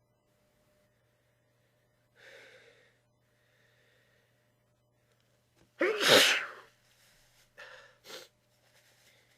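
A person sneezing into a tissue. A breathy intake comes first, then one loud sneeze about six seconds in with a falling 'choo', followed by two short breathy sniffs.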